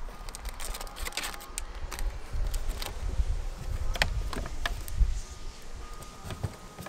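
Plastic washer-fluid bottle and other stored items being handled and lifted out of a car trunk's under-floor compartment: rustling and a run of small clicks about a second in, then separate knocks of plastic against the trunk trim, over a low rumble.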